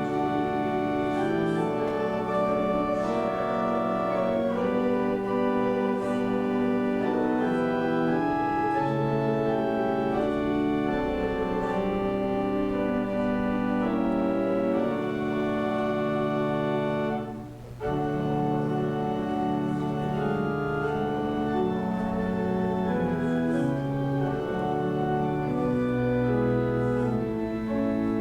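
Church organ playing a hymn in slow, held chords, with a brief break about two-thirds of the way through before the playing resumes.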